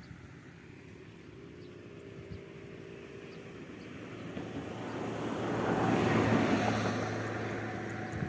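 An engine passing by, growing steadily louder to a peak about six seconds in, then fading away.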